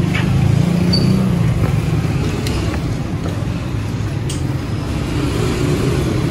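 A motor vehicle engine runs nearby with a steady low rumble. A few light metallic clicks come from a T-handle wrench working a nut on a motorcycle frame.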